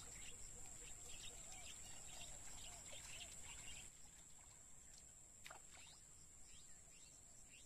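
Near silence: faint rural wetland ambience with birds chirping in short repeated calls and a steady high-pitched drone.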